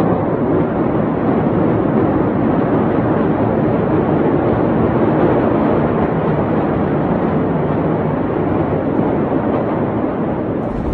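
Loud steady rushing noise with no distinct events, pitches or voices.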